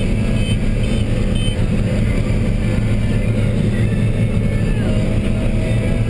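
Steady drone of a John Deere 9770 combine's engine and threshing machinery heard from inside the cab while harvesting corn. A repeating electronic beep, about two a second, sounds in the first second and a half.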